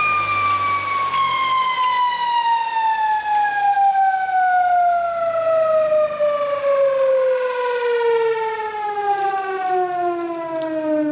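Electric drive motor and rotor of a motor–generator test rig spinning down: a whine with several overtones that falls smoothly and steadily in pitch as the rotor coasts to a lower speed. A background hiss drops away about a second in.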